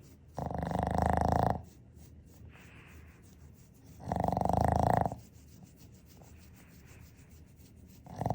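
Boston terrier snoring in its sleep: two snores about a second long, roughly four seconds apart, with a third beginning right at the end and faint breaths in between.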